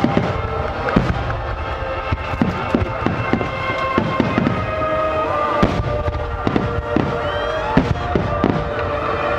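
Fireworks shells bursting in quick succession, several sharp bangs a second, with music of long held notes playing underneath.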